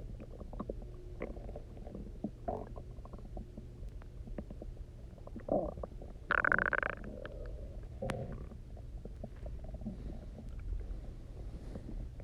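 Human stomach rumbling and gurgling: an empty stomach churning with water after a 24-hour fast. Scattered small gurgles and pops, with one louder, longer squealing gurgle about halfway through.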